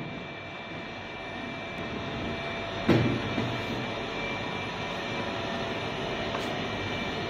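Steady din of packaging machinery running, a mechanical hum with a few held tones, with one sharp knock about three seconds in.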